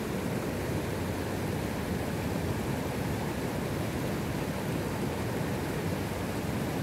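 Steady rushing of a small mountain river's water.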